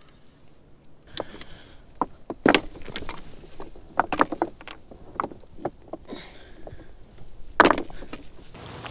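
Loose rocks clattering and a PVC-pipe rod holder knocking against them as it is jammed in between the rocks: an irregular string of sharp knocks, loudest about two and a half seconds in and again near the end.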